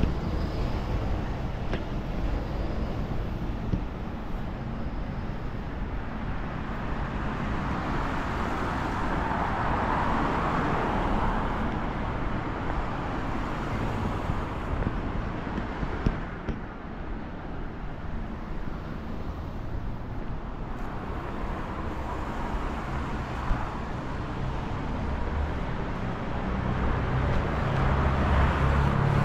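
Steady city road traffic: cars passing on a busy street, swelling as vehicles go by about ten seconds in and again near the end, with a few brief sharp clicks.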